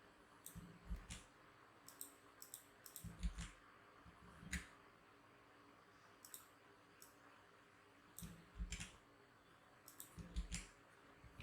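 Quiet clicks of a computer mouse and keyboard, in five short groups of a few clicks each, with pauses between.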